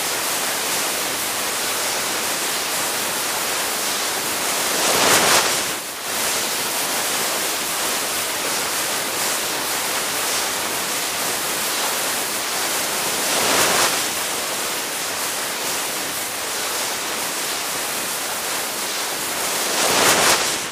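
Skis sliding over snow: a steady hiss that swells louder three times, about five, fourteen and twenty seconds in.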